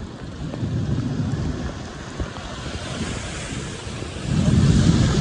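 Thunderstorm wind rushing and buffeting the microphone over a steady hiss of rain and water. It grows louder a little past four seconds in.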